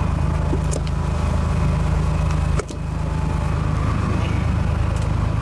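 A fishing boat's engine running with a steady low drone. A few faint ticks sound over it, and one sharp click comes about halfway through.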